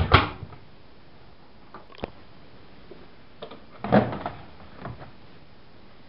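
AEG Öko-Lavamat 8650 front-loading washing machine: its porthole door is pushed shut with a loud clunk at the start, a single sharp click follows about two seconds in, and about four seconds in the plastic detergent drawer is pulled out with a short clatter.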